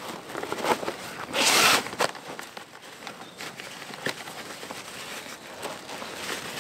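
Fabric rustling as a sack is stuffed down into the top of a rucksack, with one loud swish about a second and a half in and small scrapes and knocks of gear in between.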